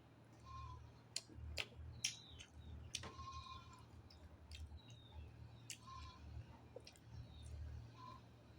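Close-up eating sounds: scattered sharp clicks and smacks of chewing, with a few loud ones in the first three seconds. A few short, faint pitched calls sound in the background, over a steady low hum.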